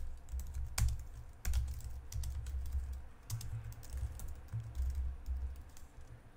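Typing on a computer keyboard: irregular key clicks with a low thud under the keystrokes as a terminal command is entered.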